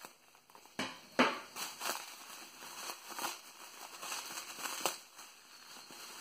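Bubble wrap crinkling and crackling in the hands as a small wrapped parcel is handled and unwrapped. The rustles are irregular, with a sharper crackle about a second in.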